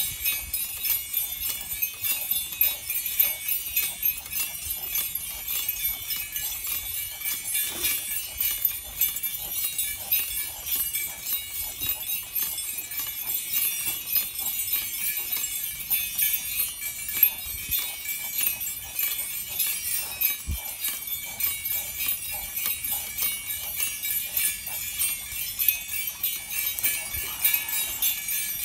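Bells on a St Bernard's draft harness jingling in a steady rhythm as the dog walks pulling a sulky cart.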